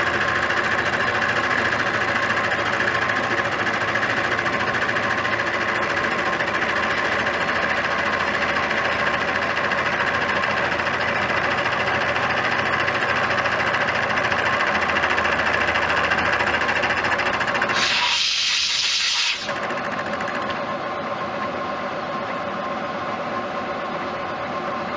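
Bridgeport-type vertical milling machine running steadily as it mills a bushing hole in a pedal. About 18 seconds in, a hiss lasting over a second, after which the machine runs on a little quieter.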